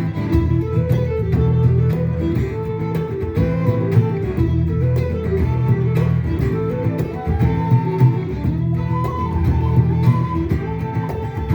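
Instrumental acoustic string music, with a steady plucked guitar-like accompaniment under a melody line and no singing.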